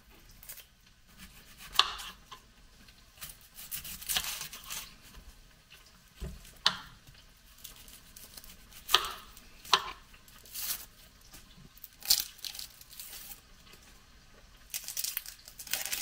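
Papery onion skins being peeled and torn off by hand: short, irregular crackling rips every second or two.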